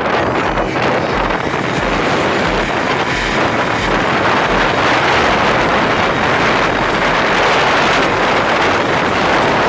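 Wind rushing over the microphone while riding a Honda CD 70 motorcycle, with its small single-cylinder engine running underneath, steady throughout.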